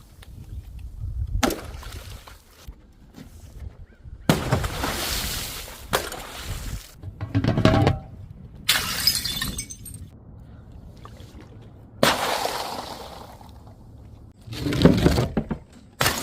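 Glass bottles and jars shattering in a series of about six separate crashes, several with a crackle of scattering shards after the impact.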